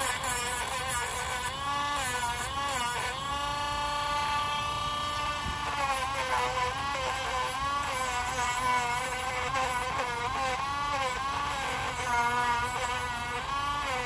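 Dremel rotary tool running with a steady buzz, its pitch dipping and recovering again and again as the spinning bit is pressed against a dog's nail to grind it down.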